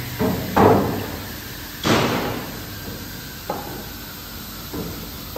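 Wooden boards knocked and set down on a cut-off saw's metal infeed table: a run of separate knocks and thuds, the loudest about half a second in and another about two seconds in, then lighter knocks.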